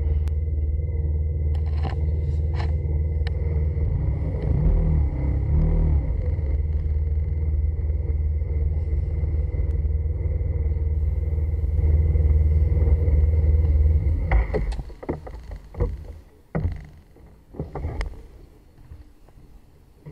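Motorcycle on the move, heard from its own camera: a loud, steady low rumble of engine and wind noise that drops away suddenly about fourteen seconds in. After that come a few scattered knocks and clicks.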